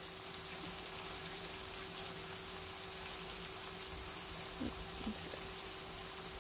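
Pork sausage patties sizzling steadily in a frying pan, over a steady low hum.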